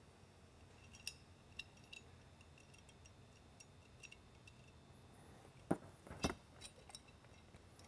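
Small metallic clicks and clinks of a bolt being hand-threaded into a captive nut on an LED spotlight's mounting bracket, with two louder knocks about six seconds in as the light housing is handled.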